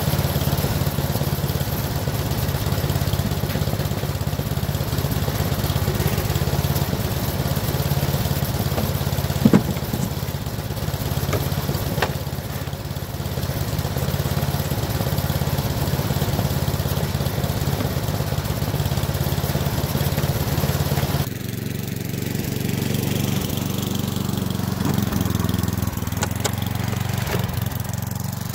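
Gas snowblower engine running steadily, with a single sharp knock about a third of the way through. Past the two-thirds mark the engine sound changes suddenly.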